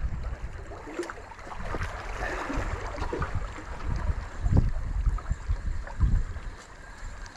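Wind rumbling and buffeting on the microphone over the sea's wash, with a sharp click about a second in.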